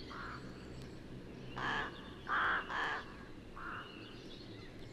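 A crow cawing: five short harsh calls, the middle three the loudest and the last two of those close together, over faint steady hiss.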